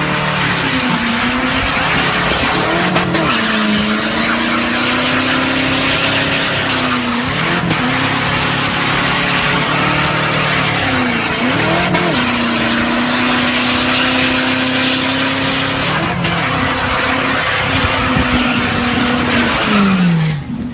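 Car doing a burnout: the engine held at high revs, its pitch dipping and climbing back several times, over a steady loud hiss of spinning tyres. The revs fall away near the end.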